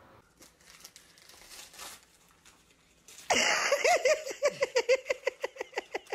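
Faint rustling, then about three seconds in a child's voice breaks out in rapid, short bursts of excited laughter, about four a second, over the crinkle of gift packaging being opened.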